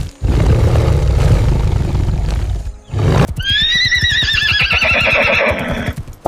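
A deep, rough rumbling sound fills the first half. Then, about halfway in, a horse gives a long shrill whinny that quavers and slowly falls in pitch.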